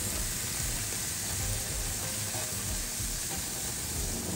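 Marinated chicken thighs sizzling steadily on a barbecue grill's grates, a hiss with a low rumble underneath.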